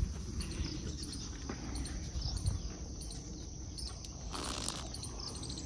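Faint outdoor ambience: a steady high insect drone with scattered small bird chirps. A short hiss comes about four and a half seconds in.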